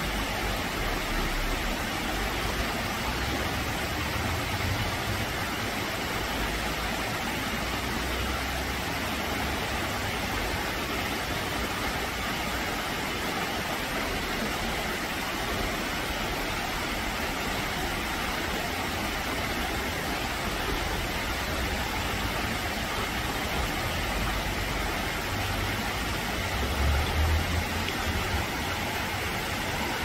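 Rocky stream rushing over small cascades: a steady, even rush of water, with a brief low rumble near the end.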